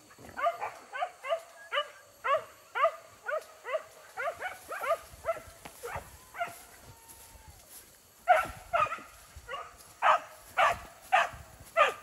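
Hunting dogs barking and yelping in quick runs of short calls, each falling in pitch. There is a lull a little past the middle, then louder barking again.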